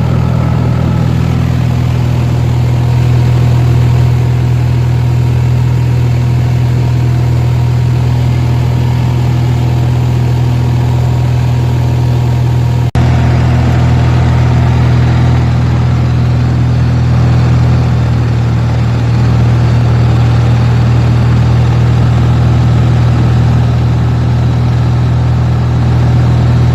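Cessna 170's six-cylinder piston engine and propeller running steadily, a constant low drone. It drops out for an instant about halfway through, then carries on unchanged.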